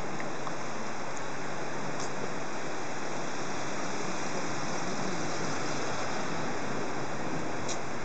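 Mountain river rushing steadily over rocks and shallow rapids, a constant hiss of flowing water.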